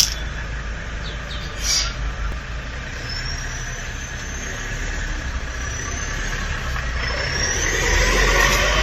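Motor vehicle running, with thin high whistling tones that glide upward several times and a low rumble that grows louder toward the end.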